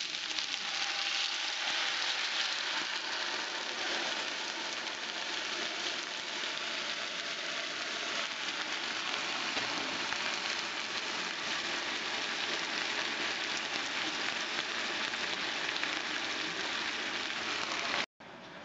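Chicken, carrot and onion stir fry sizzling steadily in a hot frying pan as a soy-based sauce is poured in and cooks down. The sizzle cuts off abruptly near the end.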